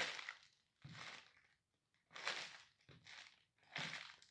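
A white paper bag crinkling and crackling under Nike sneaker soles as it is stepped on and pressed flat against the floor, in about five separate bursts.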